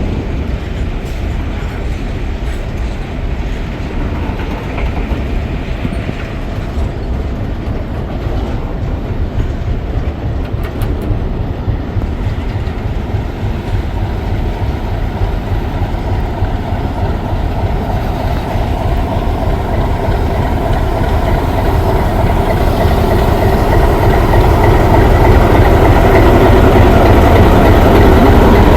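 An Indian Railways train running on the track, a dense rumble growing steadily louder through the second half as it draws closer.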